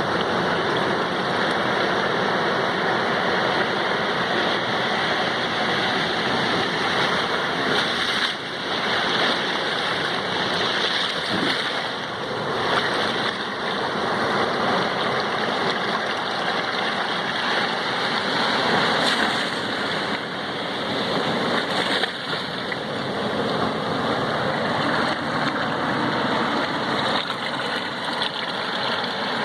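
Sea waves washing on the shore in a steady, continuous rush of surf.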